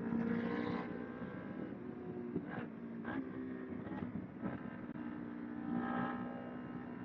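Kawasaki Ninja 250R's parallel-twin engine running while riding, the engine note swelling louder at the start and again about six seconds in.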